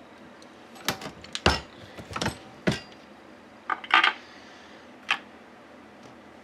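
Sharp clicks and clacks in small clusters as .308 brass cases are worked through a single-stage reloading press: a case fitted into the shell holder, the ram run up into the full-length resizing and decapping die, and the case set down in a plastic loading block. The loudest clack comes about a second and a half in.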